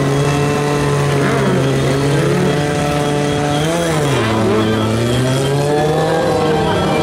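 Motorcycle engines running on a steady throttle during wheelies, the revs rising and dropping sharply just before the middle and swelling again near the end.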